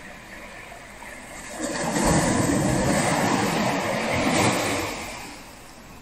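A wave breaking on the beach: the surf swells about a second and a half in, stays loud for a couple of seconds, then washes out and fades near the end, over a steady low hiss of the sea.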